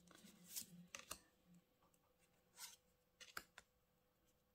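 Faint handling of tarot cards: a few soft slides and clicks as cards are moved one behind another in the hands, spaced irregularly.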